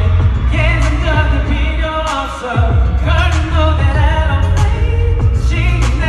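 Male singer singing live into a microphone over an amplified pop backing track with a steady heavy bass.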